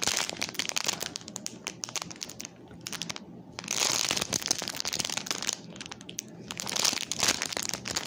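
Packaging crinkling and rustling as it is handled, in irregular spells that are loudest about four seconds in and again about seven seconds in.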